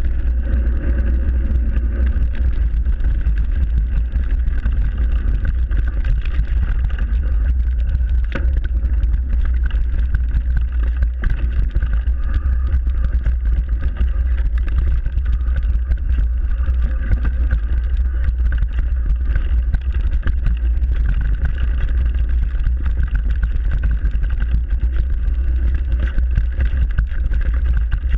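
Mountain bike ridden fast down a dirt forest trail, heard on a ride-mounted camera: a constant heavy rumble of wind and vibration on the microphone, with tyre noise and frequent knocks and rattles from the bike over rough ground.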